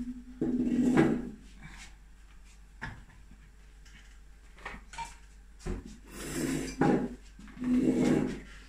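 Scattered knocks and clatter of kitchen work: bowls, a knife and utensils handled on a countertop and a wooden cutting board while onions are peeled.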